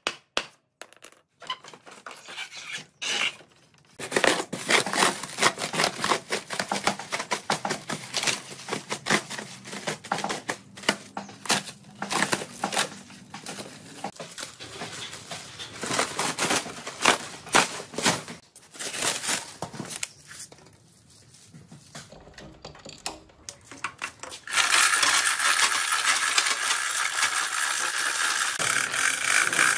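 Sharp hammer knocks on the wooden crate slats, then a long stretch of crackling, tearing and scraping as plastic wrap and foam packing sheets are pulled off the old lathe. About 25 seconds in, a steady dense rattle starts as the chain hoist is worked to lift the machine.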